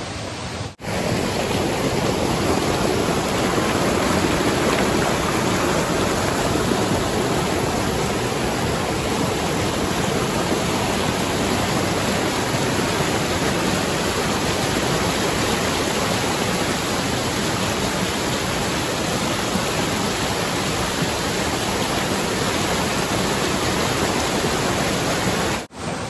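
Fast-flowing stream water rushing and splashing over rock ledges in a small waterfall cascade, a steady, even rush that starts abruptly about a second in.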